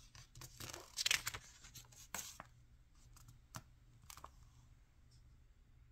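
A page of a picture book being turned, with a papery swish and rustle about a second in and a shorter one after it. A few light taps follow as the page is settled flat.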